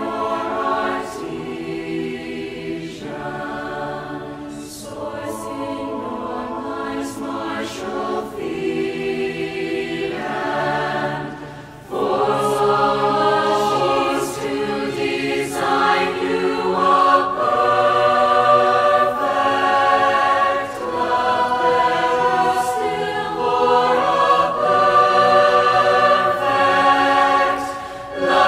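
Choral music: a choir singing slow, held chords, which grow louder after a brief dip about twelve seconds in.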